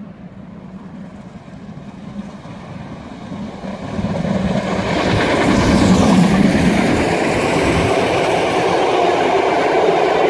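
Class 52 2-10-0 steam locomotive hauling a train past at close range. It grows loud about four seconds in and is loudest as the engine goes by, then the coaches roll past with wheels clattering on the rails.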